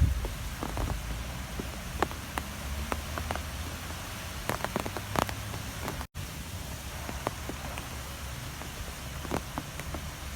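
Strong wind blowing, with a steady low rumble and scattered light ticks and taps; the sound cuts out for an instant about six seconds in.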